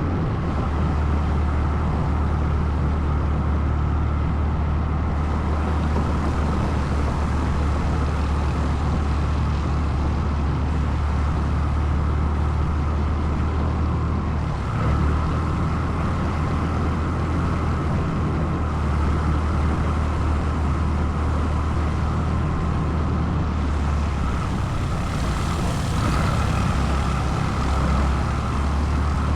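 ATV engine running steadily while under way, a constant low drone with little change in level.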